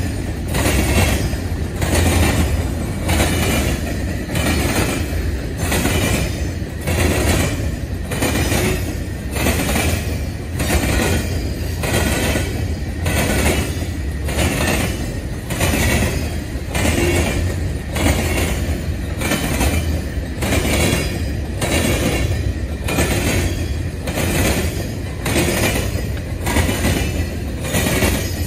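Freight train of covered hopper cars rolling past: a steady low rumble of steel wheels on rail, with a regular clack about three times every two seconds as the wheels cross the rail joints.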